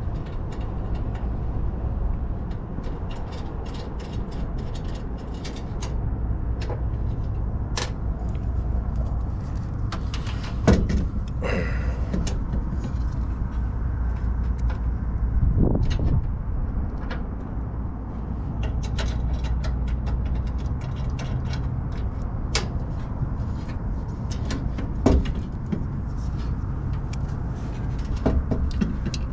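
Steady low mechanical hum, with scattered clicks and metal knocks from parts and tools being handled, and a few louder clanks.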